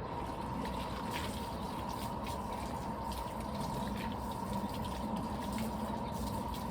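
Water running steadily from a tap into a poultry waterer as it fills.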